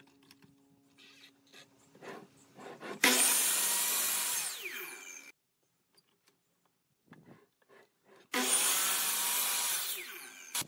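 Electric miter saw cutting through pine boards twice, each cut about two seconds long, with a falling whine during the first. Light knocks of a board being set against the fence come before the first cut.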